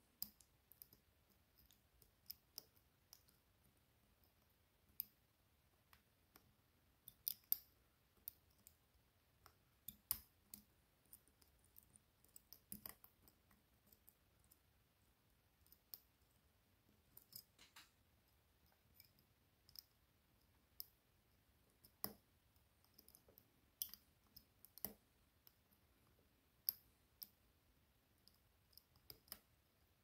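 Faint, irregular metallic clicks of a hook pick and tension wrench working the spring-loaded pins of a 5-pin BKS Kurzzylinder euro cylinder. Pins click as they are lifted and set, while set standard pins keep springing back out under shifting tension.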